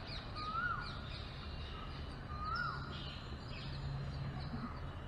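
Birds calling: a clear call that rises and then falls, twice about two seconds apart, over many quick high chirps.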